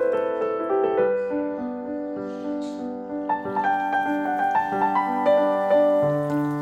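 Background piano music playing a slow, gentle melody, with faint kitchen clicks under it.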